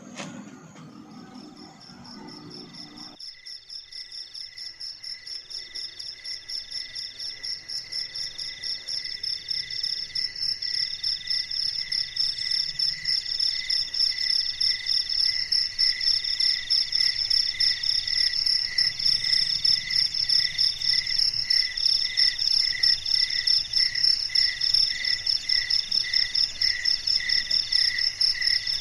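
Night insect chorus of crickets: several high, shrill trills pulsing in a steady rhythm, growing louder over the first several seconds and then holding steady.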